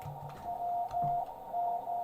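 Morse code (CW) signal from another amateur radio station heard on the receiver: a steady beep keyed on and off in dashes and dots, over the hiss of the receiver's narrow CW filter.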